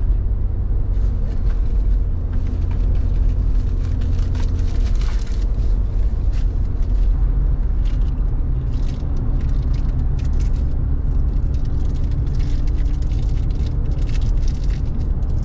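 Car driving: a steady low drone of engine and road noise.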